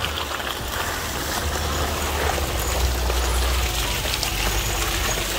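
Ford Explorer SUV rolling slowly through deep wet mud, its tyres sloshing and squelching over a low engine rumble, growing louder as it draws near.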